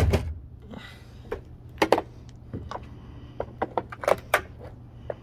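An old appliance being stomped on underfoot to break it: a heavy knock at the start, then irregular sharp knocks and cracks of its casing giving under the weight.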